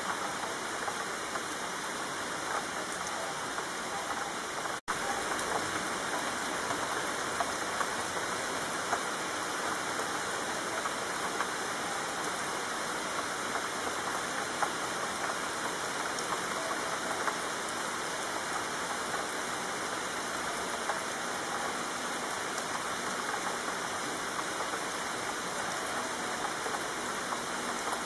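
Steady rainfall, an even hiss of falling drops with no let-up, except for a split-second dropout about five seconds in.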